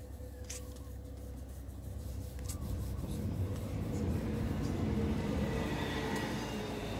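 Low rumble of a motor vehicle, growing louder from about halfway through. A couple of crisp paper sounds from book pages being turned come in the first few seconds.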